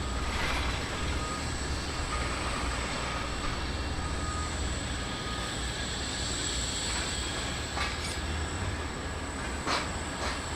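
Jet airliner engines running at an airport, a steady rumble with a thin high whine over it and a couple of brief clicks near the end.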